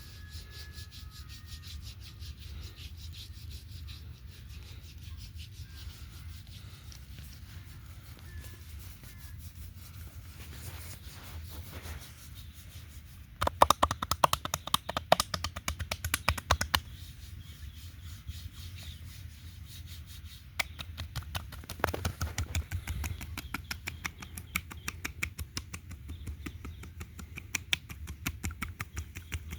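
Hands massaging heavily oiled skin: a continuous wet rubbing made of fast, fine clicks. About halfway through it grows louder and quicker for a few seconds, and again over the last third, with a steady low hum underneath.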